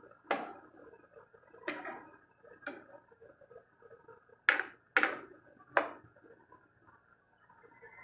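A metal cooking utensil knocking against cookware: six sharp clanks at irregular intervals, two of them close together in the middle, each with a short ring.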